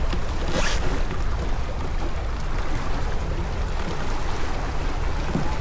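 Wind buffeting the microphone and water rushing along a sailing boat's hull under way, with a brief burst of hiss about half a second in.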